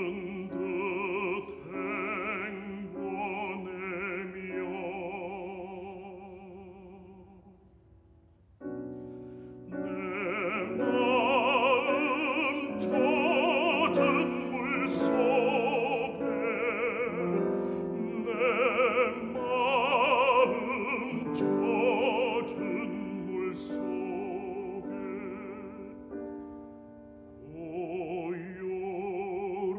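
Operatic baritone voice singing with vibrato, accompanied by grand piano, in a Korean art song. The music dies away to a soft low point about eight seconds in, then voice and piano come back in loudly and continue, with a brief dip again near the end.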